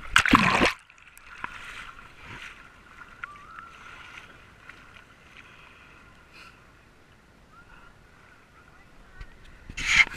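Water splashing against a handheld action camera at the water's surface, once in the first second and again near the end. Between the splashes there is a quieter stretch of faint distant beach noise and voices.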